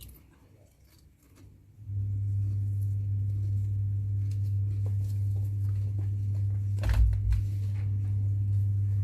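Steady low hum that drops out for about two seconds at the start, with faint clicks and a rustling knock about seven seconds in as a wristwatch is handled and fitted.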